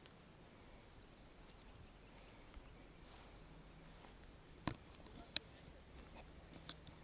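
Quiet outdoor background with a few faint rustles, and two sharp clicks a little past the middle, the second one louder.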